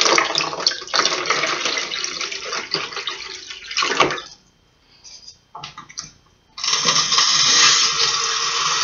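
Water poured from a plastic cup into a small turtle tank, splashing until about four seconds in. After a short pause, a sink tap runs steadily, filling the cup.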